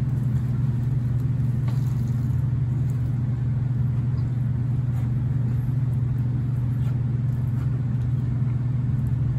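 A steady low hum, with faint crunches of crispy fried chicken being chewed.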